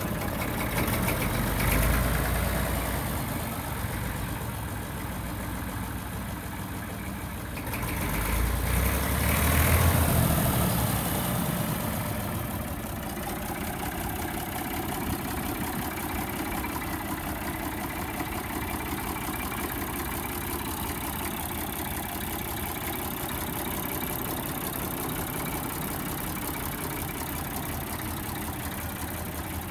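Massey Ferguson 35X tractor's three-cylinder Perkins diesel engine running as the tractor is driven slowly, swelling louder around two seconds in and again around nine to ten seconds in, then running steadily.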